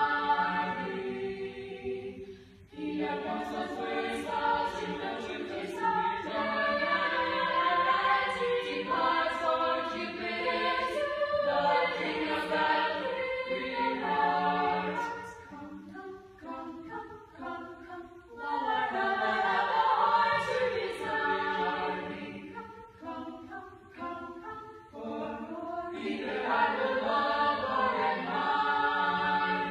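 Small choir of about ten voices singing together in harmony, in phrases with short breaks. There is a brief dip about two and a half seconds in, a softer stretch around the middle, and fuller singing again near the end.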